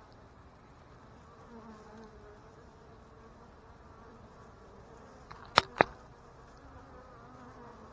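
Honey bees buzzing faintly at the hive entrance, their wing tones wavering up and down as they fly past. About five and a half seconds in come two sharp taps, a fraction of a second apart.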